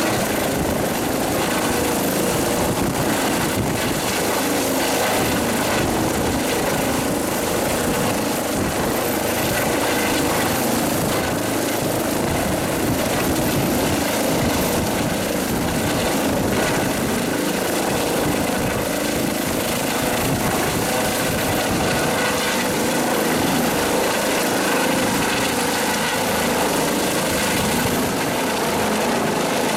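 Helicopter hovering low overhead with a water bucket slung beneath it, rotor and turbine running steadily without letting up.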